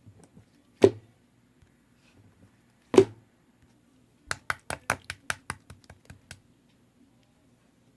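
Slime being pressed and poked by hand, with two sharp slaps about a second and three seconds in. Then comes a quick run of about a dozen popping clicks over two seconds, growing fainter.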